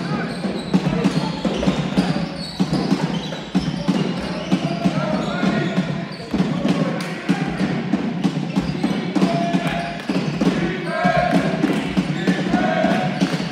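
Several basketballs being dribbled, a steady run of irregular bounces overlapping one another, with people's voices underneath.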